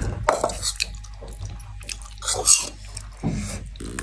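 A person eating noodles: wet slurping and chewing, with the loudest slurp about two and a half seconds in, among light clicks of a fork against a metal bowl.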